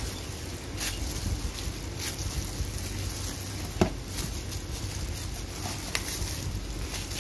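Risen yeast dough being handled with a plastic-gloved hand in a plastic tub: soft squishing and glove rustle with a few light knocks, the sharpest about four seconds in, over a steady low rumble.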